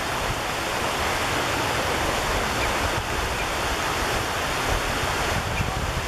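Wind blowing outdoors: a steady rushing noise with low, uneven buffeting where it hits the microphone.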